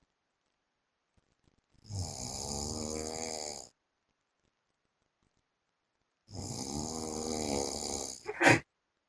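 A man snoring in his sleep: two long snores of about two seconds each, some four seconds apart, the second ending in a short, louder burst.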